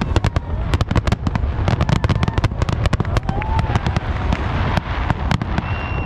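Aerial fireworks barrage: a dense, rapid string of sharp bangs and cracks, several a second, over a continuous low rumble of bursting shells.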